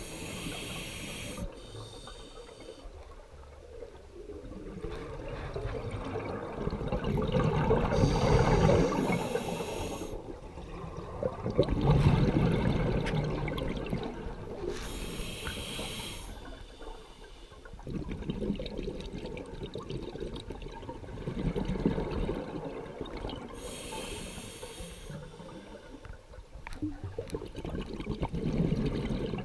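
Scuba regulator breathing heard underwater: a short hissing inhale through the regulator about every seven or eight seconds, each followed by a louder, longer gurgle of exhaled bubbles, four breaths in all.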